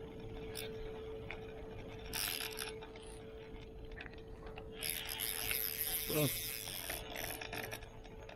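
Fishing reel ratcheting in two bursts, a short one about two seconds in and a longer, louder one from about five to seven seconds in, as line is worked against a large fish that keeps pulling.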